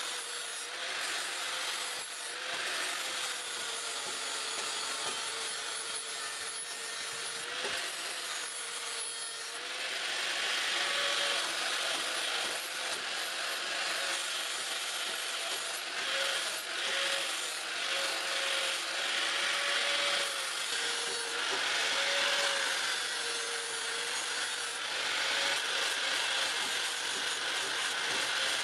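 A power grinder abrading the steel of a knife blade: a continuous rasping hiss over a motor whine that wavers and dips as the load changes.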